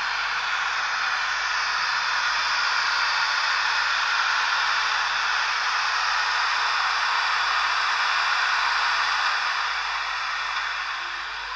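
H0 model electric locomotives running on Märklin three-rail track: a steady rushing hiss of wheels and running gear that swells as the train comes closer and eases a little near the end.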